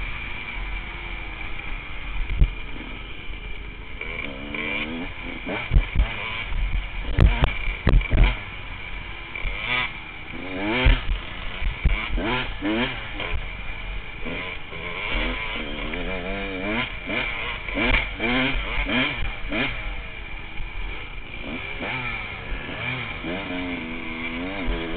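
A 1998 Honda CR125's single-cylinder two-stroke engine revving up and down as the dirt bike is ridden, its pitch rising and falling over and over with throttle and gear changes. There is a steady rush of noise, and several sharp knocks from the bike jolting over bumps in the first half.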